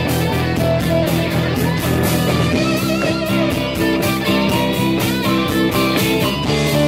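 Rock band playing live: electric guitar over bass and drums keeping a steady beat.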